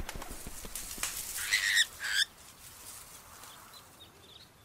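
Bushes rustling and crackling as a monkey bursts out, with two short shrill monkey screeches about one and a half and two seconds in; then only a faint hiss remains.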